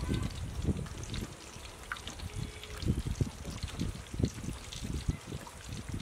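Wet sloshing and squelching of marinated chicken pieces being dipped and turned by hand in a steel bowl of beaten egg, in short irregular splashes.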